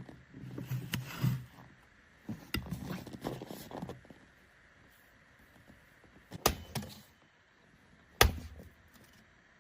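Rustling, crunching handling noise, then two sharp knocks about two seconds apart, the second the loudest.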